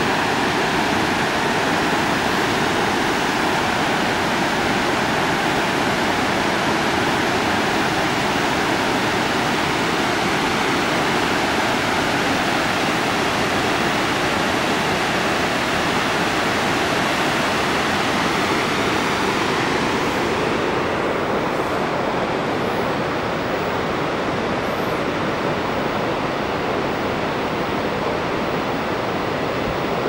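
River water rushing over low rock ledges and small cascades, a loud, steady, even rush. About two-thirds of the way through it turns duller as its top-end hiss drops away.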